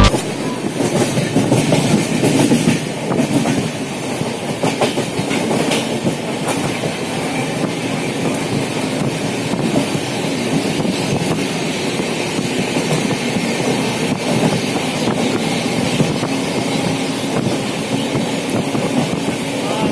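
An LHB sleeper coach running at speed, heard from inside: a steady rumble and rush of wheels on rail, with scattered clickety-clack clicks from the wheels over rail joints, more of them in the first few seconds.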